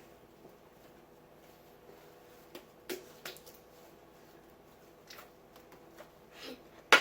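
A few scattered soft clicks and taps from slime and plastic cups being handled on a table, with a sharper, louder snap near the end.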